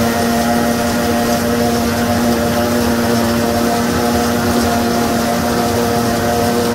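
Hesston 7725 self-propelled forage harvester at work picking up and chopping a grass swath, a loud, steady machine drone with a strong even hum, heard together with the tractor running alongside it.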